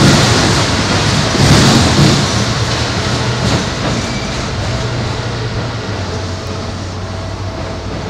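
Keikyu 800 series electric commuter train running past close by, its wheels knocking over the rail joints, then fading steadily as it draws away over a steel truss bridge.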